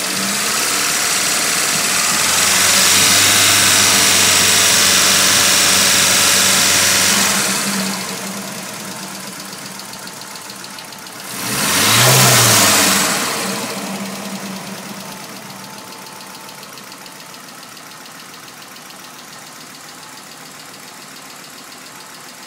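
Nissan Silvia S15's SR20DET turbocharged four-cylinder engine running with a ticking noise. It is held at raised revs for several seconds, drops back to idle, is blipped once near the middle, then settles back to a steady idle.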